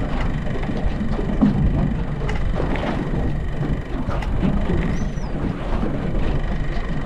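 Outboard motor running steadily at slow trolling speed, with wind and water noise around the boat. A gull gives a short, faint call about five seconds in.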